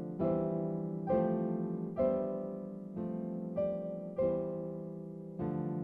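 Background piano music: slow, gentle notes and chords struck about once a second, each ringing out and fading before the next.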